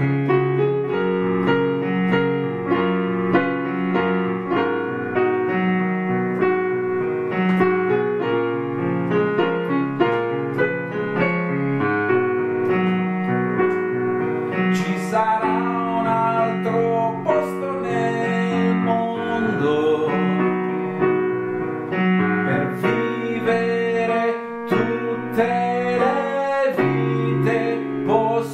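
A man singing while accompanying himself on a digital piano. Steady piano chords run throughout, and from about halfway a male voice sings a melody over them.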